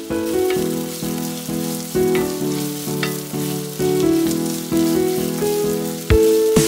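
Background music: a melody of short notes, about two or three a second, each ringing and fading. Under it, chopped onion faintly sizzles as it fries in hot oil.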